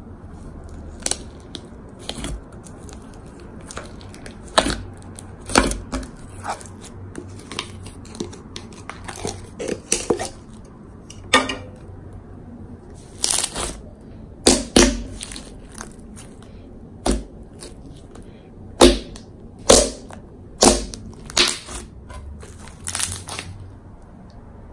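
Pink glossy slime with clay charms and sprinkles mixed in, being kneaded and stretched by hand. It makes irregular sharp pops and crackles, a few at a time with short pauses between them.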